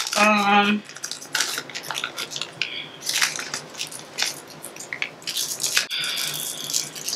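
Plastic candy wrappers crinkling and rustling in a run of irregular short crackles as small individually wrapped sweets are torn open and unwrapped.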